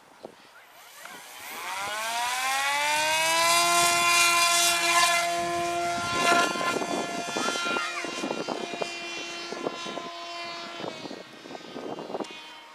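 Radio-controlled motor glider's pusher motor and propeller spinning up with a rising whine over about two seconds as the model leaves the hand. It holds steady at full power, drops to a lower, quieter pitch about six seconds in, and cuts out near the end as the model climbs away.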